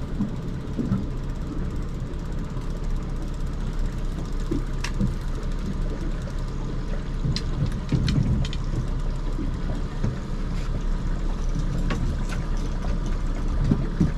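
Boat's outboard motor running steadily at low trolling speed, a constant low hum with water and wind noise over it and a few light clicks.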